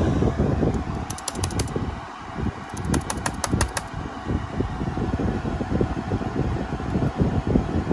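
Steady whir of the Dell Compellent SCV2020 storage array's cooling fans. Two short runs of laptop key clicks sound over it, one about a second in and a longer one around three seconds in.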